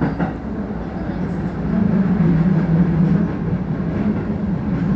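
Electric commuter train running on the Keio Dobutsuen Line, heard from inside the rear car: steady rolling noise with a low hum that grows louder about two seconds in.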